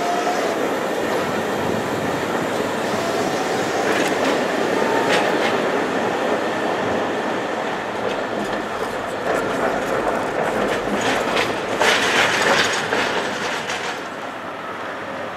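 Tatra tram passing on street track: steady rolling noise with a faint rising motor whine in the first few seconds, then wheels clacking over rail joints and points, loudest about twelve seconds in. The sound drops away to a quieter hum near the end.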